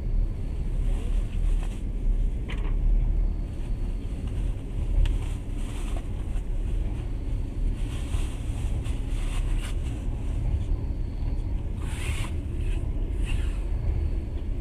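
Passenger train running at speed, heard from inside the carriage: a steady low rumble of wheels on rails with a hiss above it and a few short clatters.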